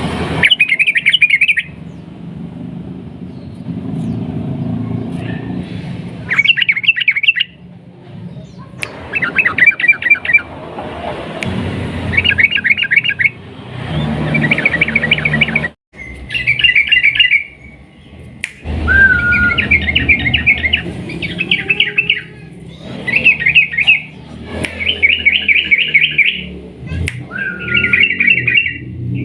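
Yellow-vented bulbul (trucukan) singing: about a dozen short, fast bubbling phrases, each roughly a second long, repeated with brief pauses between them.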